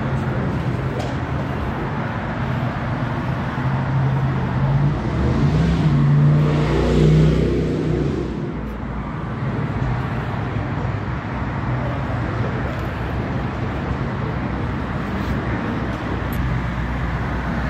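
Steady traffic rumble. About four seconds in, a vehicle engine's hum grows louder and a little higher, peaks around seven seconds in, then fades.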